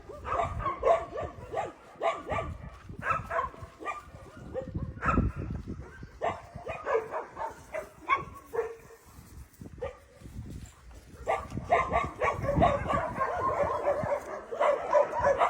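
Several young dogs barking and yipping in short, repeated calls, thickest in the last few seconds.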